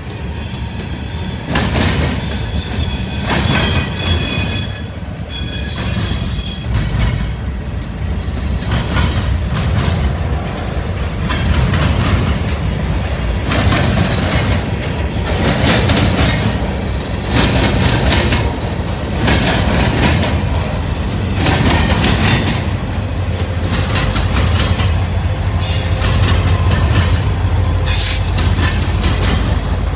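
Freight train rolling slowly past while switching, its car wheels squealing and screeching against the rails in surges every second or two over a steady low rumble.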